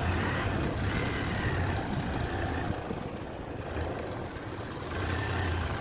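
Motorcycle engine running as the bike rides along, a steady low drone with road noise, easing a little midway and picking up again near the end.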